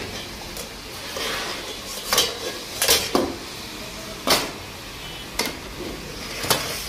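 Metal ladle clanking and scraping against steel karahi woks in a handful of irregular strikes, over a steady hiss of mutton frying in oil.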